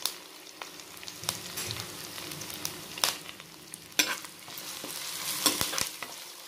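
Ginger, garlic, green chillies and curry leaves sizzling in hot coconut oil in an earthenware pot as a spoon stirs them, with a few sharp knocks and scrapes of the spoon against the pot.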